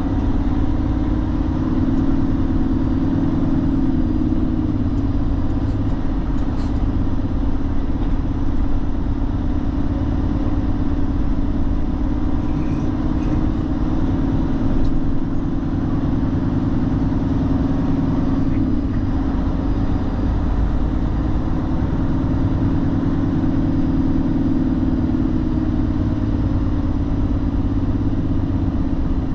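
Tractor-trailer truck's engine running steadily while driving, a continuous low hum with road noise.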